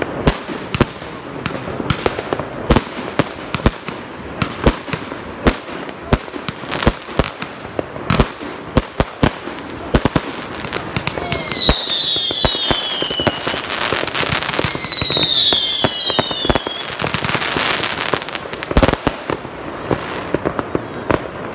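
Fireworks going off in rapid, irregular bangs and crackles. Two falling whistles, each over a dense crackle, come about eleven and fifteen seconds in.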